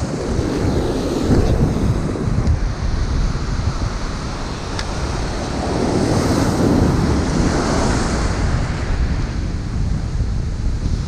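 Ocean surf breaking and washing up the beach, with wind buffeting the microphone; the surf swells louder a little past the middle.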